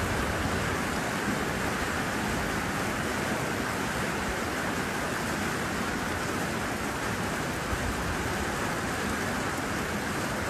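Heavy rain pouring down, a dense steady hiss with no breaks.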